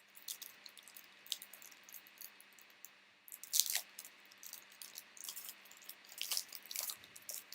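Foil trading-card pack wrapper crinkling and tearing as the pack is opened by hand: a string of sharp crackles, loudest about three and a half seconds in.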